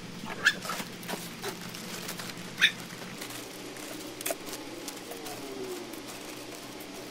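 Plastic potting-mix bag being handled, giving a few sharp crinkles and rustles, the strongest about half a second and two and a half seconds in. A bird calls faintly in the background with a few falling notes near the end.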